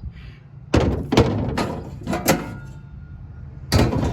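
Wood pellets being loaded into the Traeger Scout pellet grill's hopper, with several sudden loud clattering thunks.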